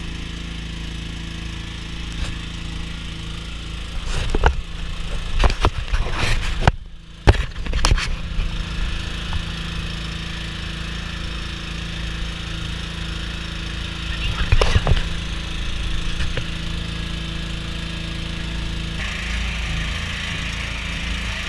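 Small engine running steadily at an even pitch, with knocks and clatter from about four to eight seconds in and again near fifteen seconds.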